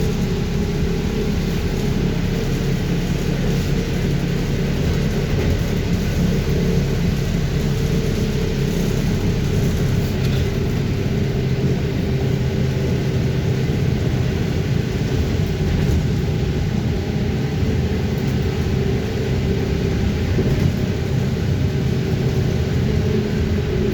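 Cabin of a BKM 321 trolleybus under way: a steady hum of the electric traction drive with several held tones, over rolling and road noise.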